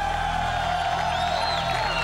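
Music playing, with a crowd cheering and whooping behind it.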